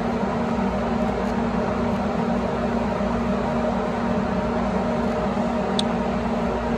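A motor running with a steady, even hum over a noisy drone, with one brief high squeak about six seconds in.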